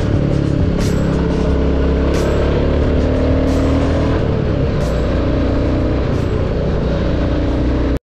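Background music mixed with the running single-cylinder engine of a Royal Enfield Classic 350 motorcycle on the move. The whole mix cuts off abruptly at the end.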